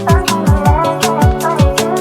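Background music with a steady electronic beat: falling-pitch kick drums about two to three times a second under sustained chords and bright percussion.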